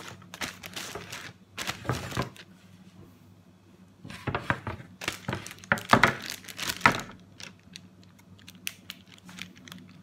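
Filled plastic zip-lock bags crinkling as they are handled and shifted about, in irregular bursts with quieter stretches between, over a faint steady low hum.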